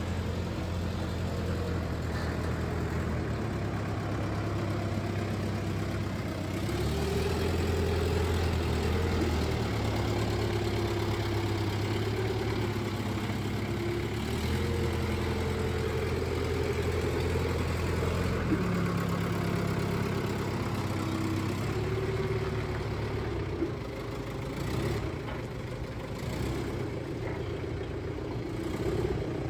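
Isuzu C240 four-cylinder diesel engine of a TCM FD25Z2S forklift running steadily, its note picking up for a few seconds twice, about seven and fifteen seconds in.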